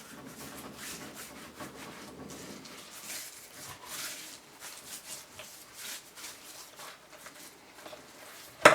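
Hands rubbing dry seasoning into a rack of raw pork baby back ribs: soft, irregular rubbing and rustling of meat, ending with a sharp knock right at the end.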